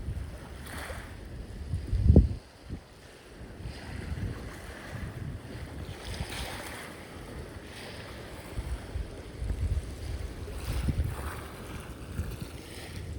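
Sea waves washing in and out, each wash swelling and fading over a few seconds, with wind buffeting the microphone; the strongest gust comes about two seconds in.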